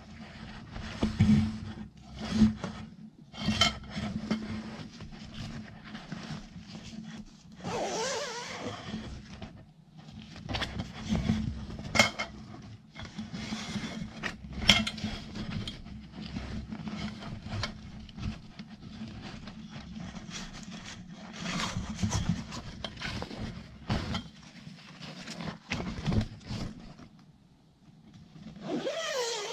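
A zippered nylon carrying bag being opened and its aluminium stand poles handled, with metal tubes knocking and clinking against each other over fabric rustling and rubbing.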